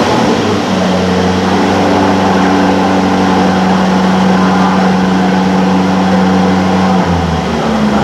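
2024 Aston Martin DB12's twin-turbo 4.0-litre V8 idling high and steady just after start-up, then settling to a lower idle about seven seconds in.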